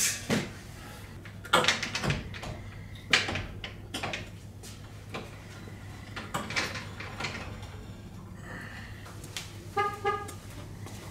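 Scattered metal clanks and knocks as a Ford 9-inch rear axle and its leaf springs are handled and shifted under a pickup's frame, over a steady low hum. A short high tone sounds about ten seconds in.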